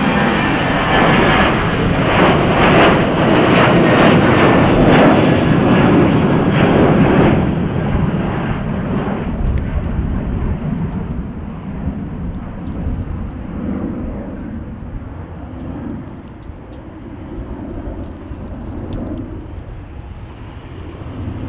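Jet airliner's engines at takeoff power: a loud roar with a crackle that holds for about seven seconds, then fades gradually to a low, wavering rumble as the aircraft moves away.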